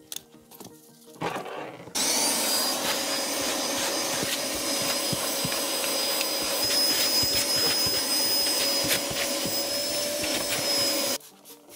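Canister vacuum cleaner switched on about two seconds in, running steadily with a high whine and scattered ticks as its hose and metal wand clean the car's floor. It cuts off abruptly near the end.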